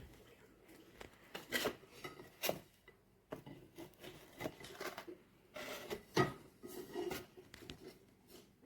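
Scattered light knocks and short rubbing sounds at a low level, as of something being handled.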